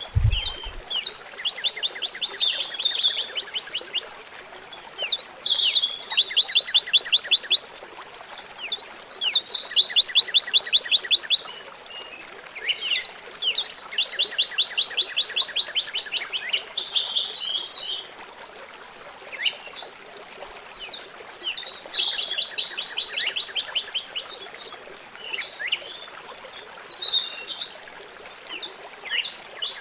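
Songbirds chirping, with several fast trills of rapid repeated notes, each run lasting a second or two. Beneath them is the steady trickle of running water.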